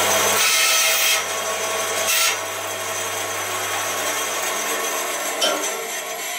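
Band saw running with its blade cutting through the end of a wooden fence, the cut noise swelling twice in the first couple of seconds. About five and a half seconds in, the motor hum stops and the saw runs down to quiet.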